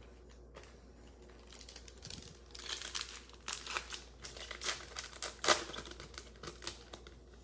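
Wrapper of a Prizm Football trading card pack crinkling and tearing as it is ripped open: a rapid run of crackles starting about two seconds in, loudest about five seconds in.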